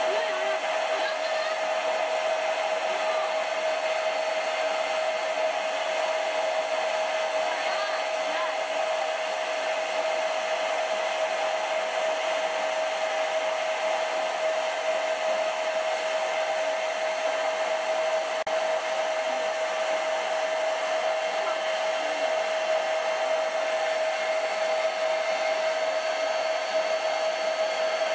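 Electric air pump running steadily and inflating a large vinyl beach ball: a constant hum over a rushing hiss of air, unchanging in pitch.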